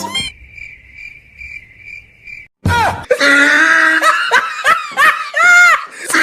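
Cricket chirping, a thin high pulsing chirp for about two and a half seconds, then after a short gap a loud outburst of laughter.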